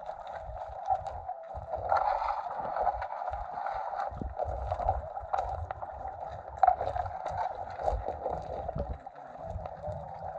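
Muffled water sloshing with irregular knocks and low thumps, as heard through a waterproof action-camera housing.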